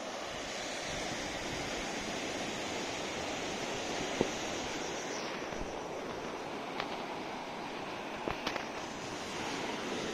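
Steady hiss of surf washing on a beach, with a few sharp clicks over it, the loudest about four seconds in and a quick pair near the end.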